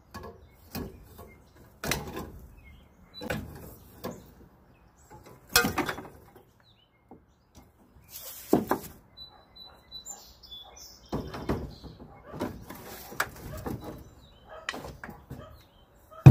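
Copper refrigerant lines being cut and worked loose inside a scrapped air-conditioner condensing unit: a run of separate metallic clanks, scrapes and rattles.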